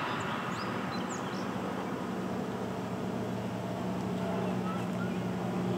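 Outdoor ambience: a steady low hum, with a few short, scattered bird chirps.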